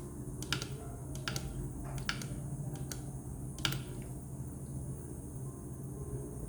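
Anti-gravity water-drop humidifier running with a steady low hum, while light clicks from the dripping water come about once a second and stop after about four seconds.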